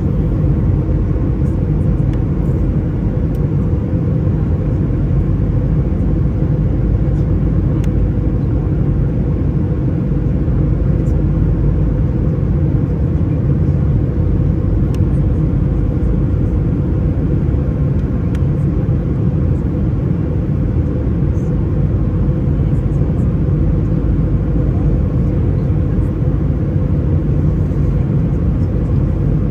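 Jet airliner cabin noise from a seat over the wing: the steady drone of the turbofan engines and rushing airflow, a low, even rumble with no changes.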